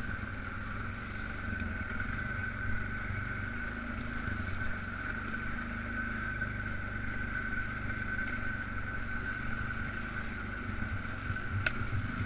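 Polaris Sportsman 500 ATV's single-cylinder four-stroke engine running at a steady pace, a low drone with a steady high-pitched whine over it.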